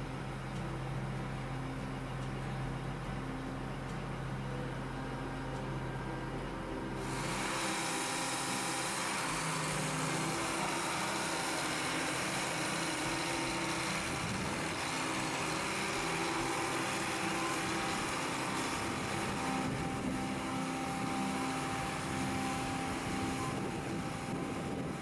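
Case IH STX485 Quadtrac's diesel engine idling at about 870 rpm, heard as a steady low hum inside the cab. About seven seconds in, this gives way to the tracked tractor's engine running as it moves on its rubber tracks, a louder, fuller and noisier sound that holds steady.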